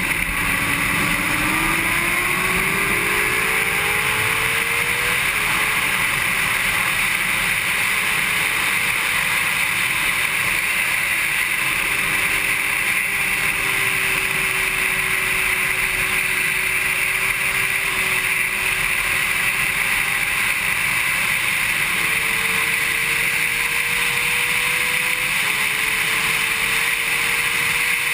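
Honda CBR600RR inline-four engine running at track speed under a constant rush of wind, its pitch climbing over the first few seconds, then holding fairly steady, with a brief dip about 25 seconds in.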